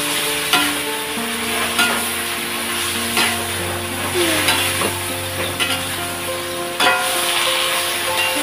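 Water spinach and genjer sizzling as they are stir-fried in a metal wok, with a metal spatula scraping and knocking against the pan about once a second. Soft background music with held notes plays underneath.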